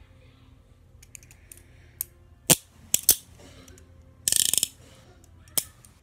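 Metal hinged handcuffs being worked by hand, the cuff arms clicking through their ratchets. Single sharp clicks are scattered through, with a quick run of clicks about four seconds in.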